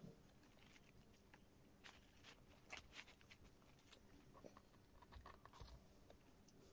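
Faint crinkling and crackling of a paper food wrapper being handled and pulled open, a run of quick crackles in the middle.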